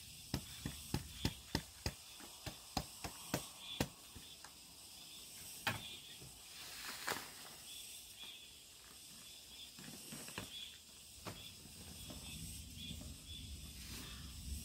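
Hands working partly dried potato starch through a round metal sieve and crumbling damp lumps on a cloth. A run of sharp taps, about three a second, for the first few seconds, then scattered taps and a soft rustle of starch and cloth toward the end.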